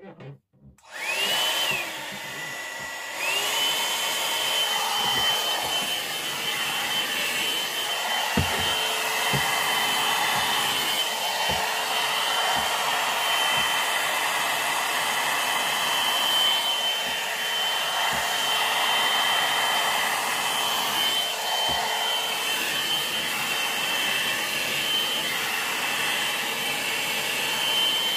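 A one-step hot air brush (hair dryer and styler) switches on and its motor whines up to speed, drops briefly to a lower setting, then runs steadily on high with a high whine over rushing air. A few soft low knocks come through as the brush is handled.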